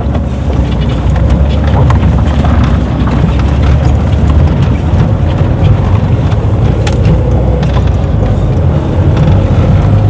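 Car driving, heard from inside the cabin: a steady engine and tyre rumble as it rolls off a gravel shoulder onto the asphalt highway.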